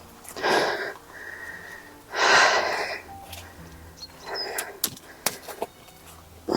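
Three heavy, huffing breaths about two seconds apart, the middle one loudest, with a few sharp clicks between them, from a person forcing a way through brambles.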